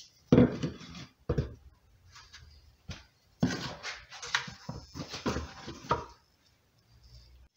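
A plastic bucket and a short PVC pipe handled on a wooden workbench: a series of knocks and thumps with some scraping as the bucket is turned and the pipe set against its side.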